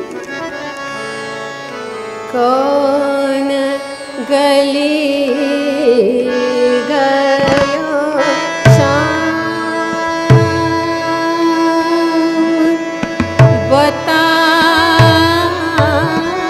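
A woman's voice singing a thumri in raag Mishra Khamaj, holding long notes with wavering ornaments over sustained harmonium tones. Deep tabla strokes join from about halfway through.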